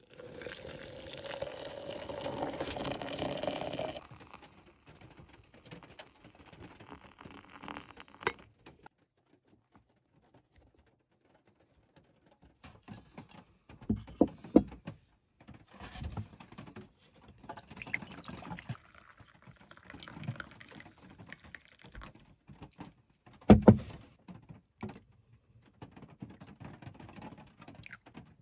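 Liquid poured from a camp kettle, first into a pot and then into two enamel camp mugs, with a few sharp clinks and knocks of the mugs and kettle set down on a wooden table between pours.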